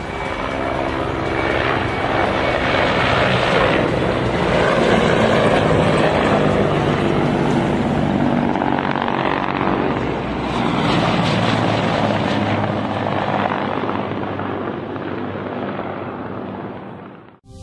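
Helicopter flying over: loud, steady rotor and engine noise that swells about two seconds in, stays loud through the middle, eases off and then cuts off suddenly near the end.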